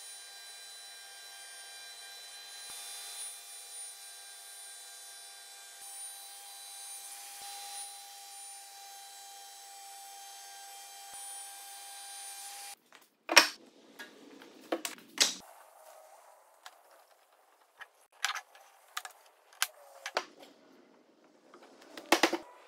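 A spindle moulder (shaper) running with a steady whine and cutting noise as a board is fed past the cutter. It then gives way to a handful of sharp wooden knocks and clicks as the boards are handled and set down.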